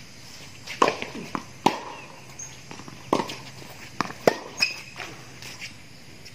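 Tennis balls struck by rackets and bouncing on a hard court during a doubles rally: a run of sharp pops, several a second at times, clustered in the first half and around the middle.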